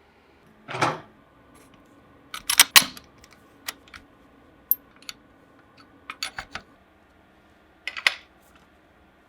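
Scattered sharp clicks and light metallic clinks, with a duller knock about a second in and the loudest clusters near three seconds in and again near the end.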